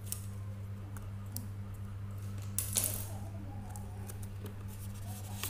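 Small clicks and rustles of hands handling a helmet intercom headset's plastic parts and cable, with one louder rustle a little under three seconds in. A steady low electrical hum runs underneath.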